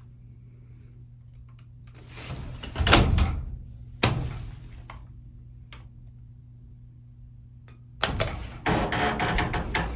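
Hydraulic elevator doors sliding, ending in a sharp thump about four seconds in, over a steady low hum. About eight seconds in, a louder spell of sliding and rattling with several knocks begins.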